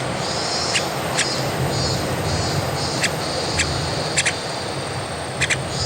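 Brief, sharp chirps from a young white-cheeked starling, about once a second and sometimes in quick pairs, over a steady high hiss and a low hum.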